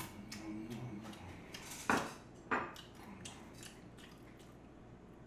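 A small plate set down on the table with a sharp clink about two seconds in, then a lighter knock about half a second later, among faint eating clicks.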